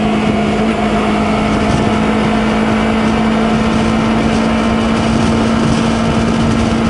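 Honda CBR250RR's parallel-twin engine running at a steady, unchanging pitch as the motorcycle rides along, with wind noise over the microphone.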